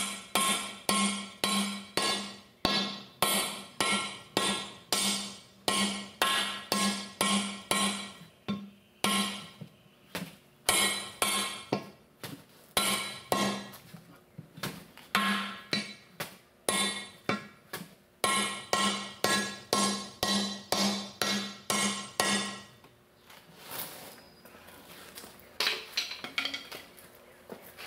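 Repeated hammer blows on a steel wheel as a tire is beaten onto it by hand, about two strikes a second, each leaving the steel rim ringing. The blows stop about 22 seconds in, followed by a few lighter metal clinks.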